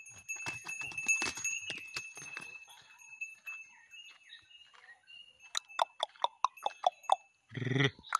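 Hooves scuffling on gravelly ground as a calf plays, then a quick run of about eight bell clanks, roughly five a second, in the later half, followed by a short low call near the end.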